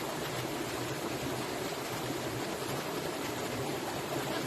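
Creek water flowing over rocks: a steady rushing.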